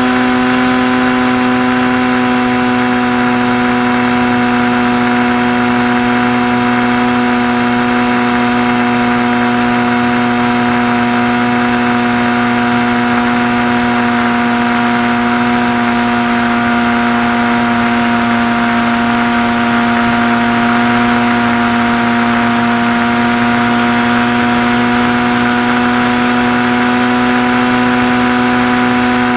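Skywalker RC plane's electric motor and propeller running with a steady whine at a nearly constant pitch.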